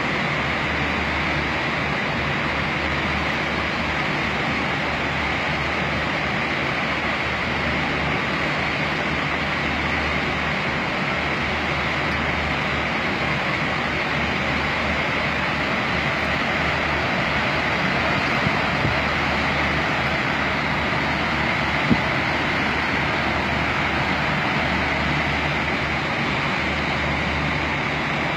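Muddy floodwater rushing down a street in a flash flood: a steady, unbroken rush of water noise.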